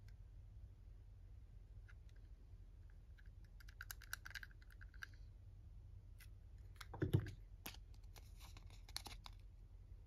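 Small plastic gator toy handled in the fingers: scattered light clicks and scrapes of its plastic parts, one louder knock about seven seconds in as it is set down on the table, then a papery rustle.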